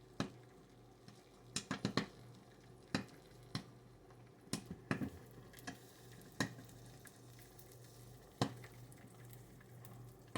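Popcorn kernels popping sparsely in hot oil inside an electric stirring popcorn popper, about fifteen sharp irregular pops, with the popper's stirring motor humming faintly underneath. The popping is thinning out as the batch nears done.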